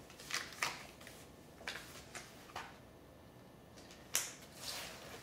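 Short scuffs and rustles of things being handled, about seven in all, spread over a few seconds; the sharpest comes a little past four seconds in.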